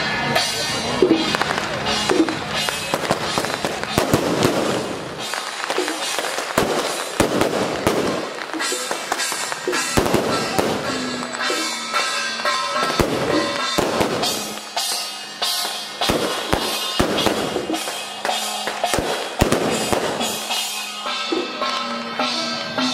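Strings of firecrackers going off in dense, irregular volleys of sharp pops, with music playing underneath.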